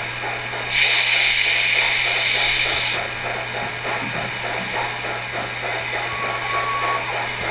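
Sound system of an HO scale MTH Proto-Sound 3.0 PRR USRA light Mikado playing its standing-locomotive sounds: a steady mechanical background with a loud hiss of released steam from about one to three seconds in, and a short steady tone near the end.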